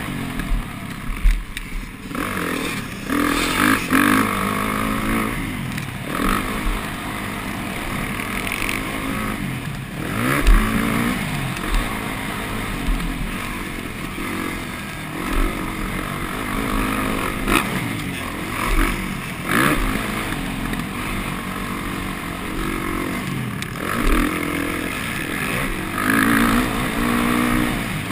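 Kawasaki KX450F's single-cylinder four-stroke engine revving up and dropping back again and again as the bike is ridden hard along a dirt motocross track. Wind rushes over the microphone throughout, with a few sharp knocks from the bike over bumps.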